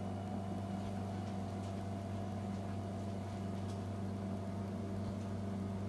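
Steady low hum with faint hiss and no other events.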